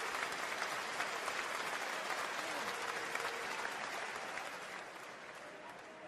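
Spectators at a junior rugby match applauding, a dense patter of many hands clapping. It fades away over the last second or two.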